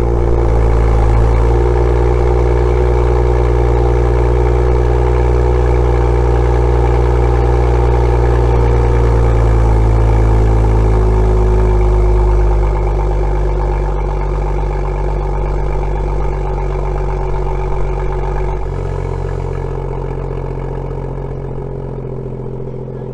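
BMW M2's N55 turbocharged inline-six, running through the M Performance exhaust with its tips removed, at a high cold-start idle that steps down about ten and thirteen seconds in and settles quieter. There is no metallic rattle: with the tips off the vibration is gone, which marks the loosely fitting tips as its cause.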